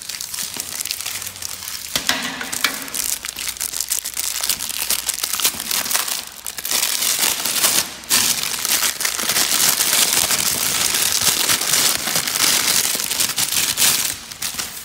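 Plastic wrapping crinkling and rustling continuously as ceiling fan blades are unwrapped, with many small crackles, busiest in the second half.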